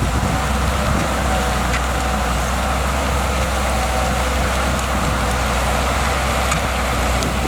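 Shantui DH17C2 bulldozer's diesel engine running steadily, with a few faint ticks over it.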